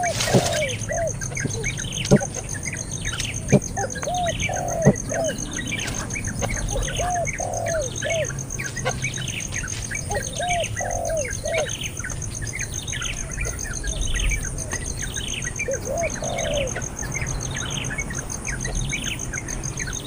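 Baby bird chirping continuously: a steady run of short falling chirps, about two a second, mixed now and then with lower, rounded calls. A few sharp clicks come in the first five seconds.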